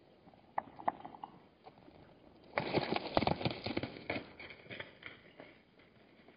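Hartmann's mountain zebras' hooves clattering and scuffling on hard ground. A few single clicks come in the first second, then a dense run of knocks and scrapes from about two and a half to four seconds in, the loudest part, as the animals move and jostle.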